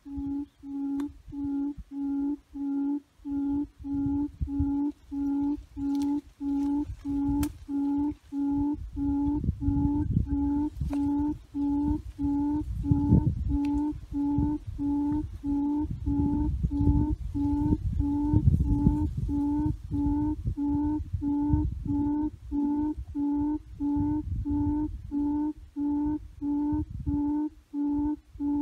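Recorded bird call played through a loudspeaker as a hunting lure: one low hooting note repeated at a steady pace, about four notes every three seconds. A low rumble, like wind on the microphone, rises under it through the middle.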